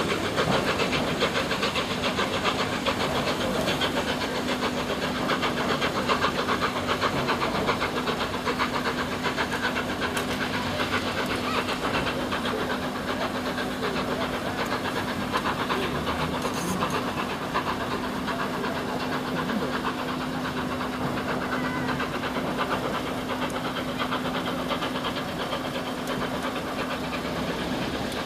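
Steam locomotive working a train of coaches away, its exhaust beating rapidly over the hiss of steam and the rumble of coach wheels on the track, with a steady hum underneath. The sound fades slowly as the train draws away.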